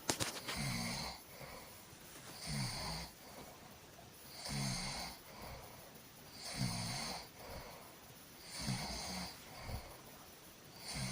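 A person snoring in sleep, one snore about every two seconds.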